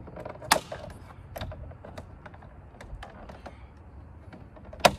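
Plastic retaining clips of a new M-style kidney grille on a BMW F10 clicking as the grille is pressed into the bumper, with a run of small clicks and two loud snaps, one about half a second in and one near the end.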